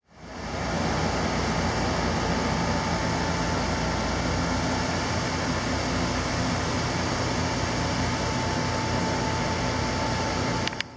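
Steady rain falling on palms and foliage, an even hiss with a faint steady hum under it. It fades in at the start and stops with a click or two near the end.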